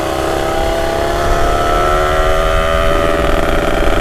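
Motorcycle engine running steadily while riding, its pitch sinking slightly, then shifting about three seconds in, over a steady low rumble.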